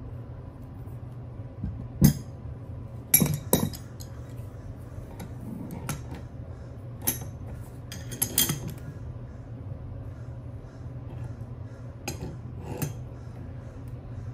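Adjustable steel wrenches and a uniball press tool clinking and clanking against each other as they are set onto an upper control arm, ready to press in a new uniball. Scattered sharp knocks, loudest about two and three seconds in, over a steady low hum.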